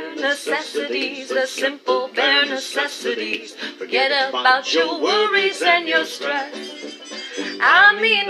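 A woman singing a quick-moving song with many short notes, over music.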